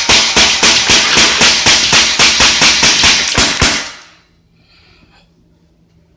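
Daisy Powerline 426 CO2 BB pistol rapid-fired: a fast string of sharp shots, about five a second, that stops about four seconds in.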